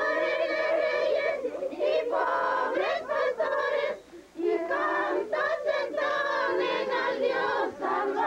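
A group of voices singing a hymn together, with short breaks between phrases, the longest about four seconds in.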